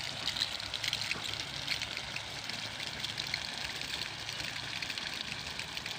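Water spraying and pattering from a homemade sprinkler, many fine drops ticking in a steady hiss, with a low steady hum underneath.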